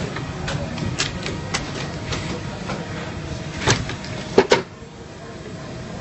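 EF-878MA+ computerized toe lasting machine at work as a shoe on its last is fed into the pincer head: a run of sharp mechanical clicks and clacks over a steady hum, with three loud knocks a little past halfway.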